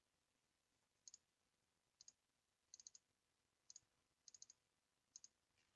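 Faint computer mouse button clicks, coming in quick pairs and triples about once a second, as in double-clicking through folders in a file dialog.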